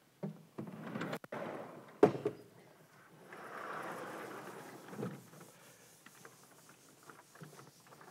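Sliding blackboard panels being moved in their frame with a scraping rumble that ends in a sharp knock about two seconds in, followed by a felt eraser wiping chalk off the board for a couple of seconds.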